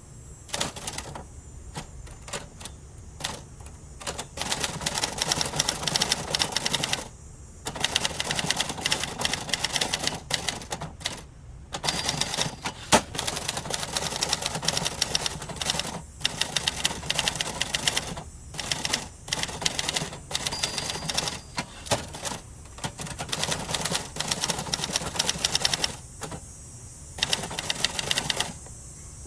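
1970s Adler Gabriele 25 manual typewriter being typed on: runs of rapid key strikes broken by short pauses. The typing stops shortly before the end.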